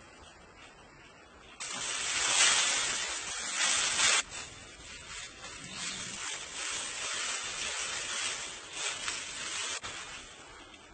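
Dry grass thatch rustling and crackling as it is handled and pressed down on a roof. It comes in suddenly about a second and a half in and is loudest for the next few seconds. It then goes on more softly and unevenly and stops abruptly near the end.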